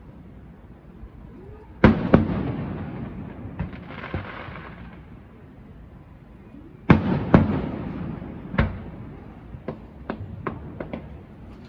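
Aerial fireworks shells bursting: a loud boom about two seconds in, two more in quick succession around seven seconds in and another shortly after, each trailing off in a rumbling echo. Near the end comes a quick run of smaller sharp cracks.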